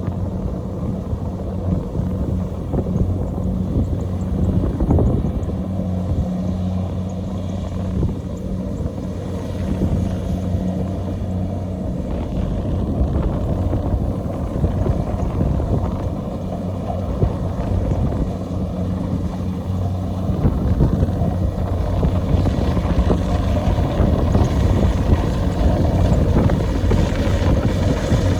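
Kubota DC-70 Plus rice combine harvester's diesel engine and threshing machinery running steadily while harvesting, a continuous low hum that grows a little louder in the last few seconds.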